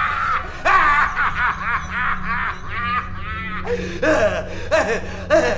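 A man laughing loudly, with wild, open-mouthed bursts of laughter one after another.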